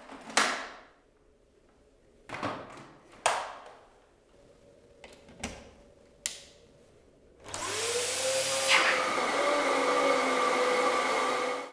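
Several sharp clicks and knocks of the Dyson DC14 upright vacuum being handled. Then the vacuum is switched on: its motor spins up with a rising whine and runs steadily and loudly before cutting off suddenly.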